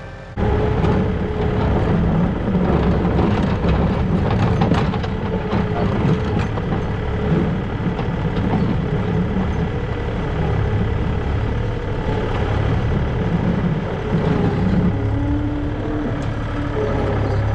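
Farm loader tractor's diesel engine running steadily, heard close up from the tractor, while its front loader bucket pushes manure across a concrete pad, with scraping and knocking for the first several seconds.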